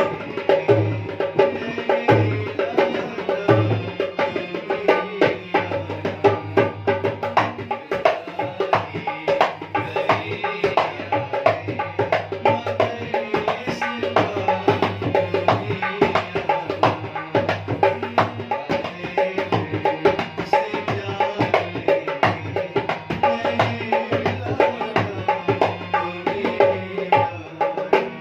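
Instrumental Indian folk-style music: a dholak drum keeps a fast, steady beat with deep bass strokes under a held keyboard melody, most likely a harmonium.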